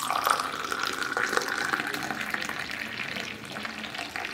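Milk tea poured in a thin stream from a height into a glass cup: a steady splashing pour that froths the tea as the glass fills.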